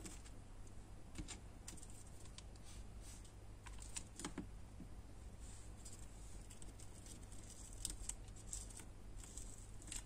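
Soft, scattered clicks and taps of small paper flowers and thin wooden fence pieces being handled and pressed together on a cutting mat, with the hot glue gun set down on the mat. A faint steady low hum runs underneath.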